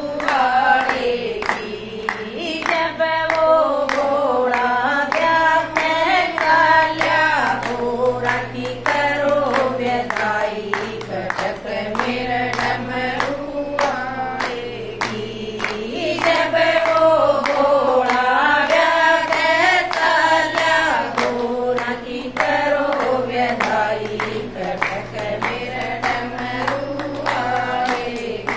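Women singing a Haryanvi Shiva bhajan together, keeping time with steady rhythmic hand claps.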